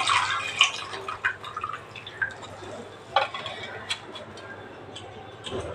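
Water dripping and trickling into a steel bowl as handfuls of washed, chopped fenugreek (methi) leaves are squeezed out by hand, with a few light taps.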